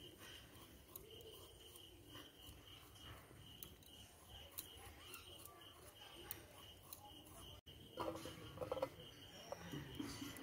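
Faint, steady insect chirping, a rapid pulsing at one pitch, with light clicks and scrapes of a knife peeling and cutting potatoes. About eight seconds in there is a short, louder burst of sound.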